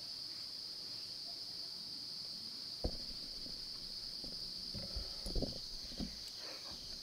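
Steady high-pitched chorus of insects singing in the woods. A single knock about three seconds in, then a few soft bumps and rustles in the second half as the camera and bow are handled.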